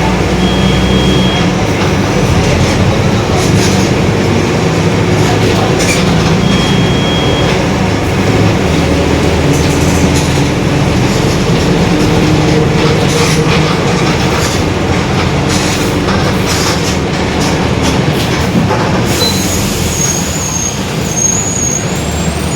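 Mercedes-Benz OF-1721 city bus under way, heard from inside: the diesel engine and drivetrain running steadily, with the rear differential growling. Two short high beeps come in the first seconds, and a high wavering squeal sounds near the end.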